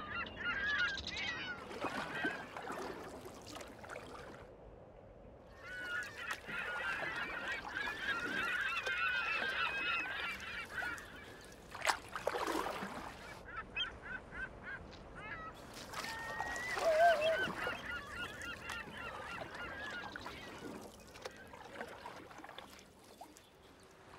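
A flock of waterbirds calling together in several bouts of overlapping cries, with one short knock about halfway through.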